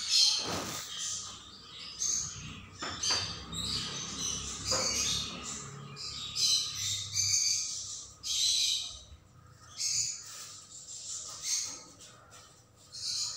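A hand squeezing and tossing broken string hoppers moistened with coconut milk in a tray, rustling in short irregular bursts about once a second.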